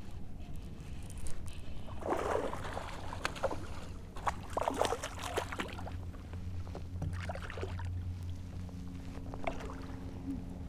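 Water splashing and sloshing around a kayak in irregular bursts, over a low steady hum.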